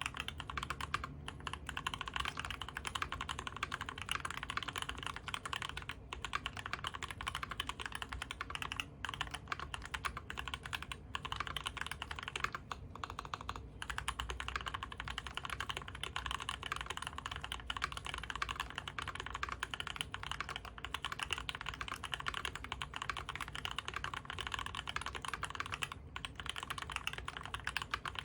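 Fast continuous typing on a custom Whale75 mechanical keyboard with tactile U4T switches, a brass plate and GMK keycaps: dense keystrokes with brief pauses now and then.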